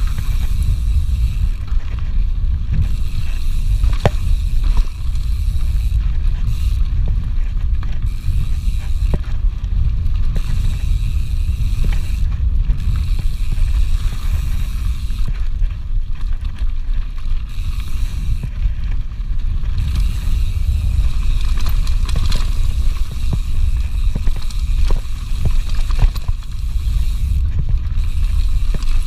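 Mountain bike riding fast down a dirt forest trail: a steady low rumble of tyres and rushing air, with scattered clicks and rattles from the bike over bumps.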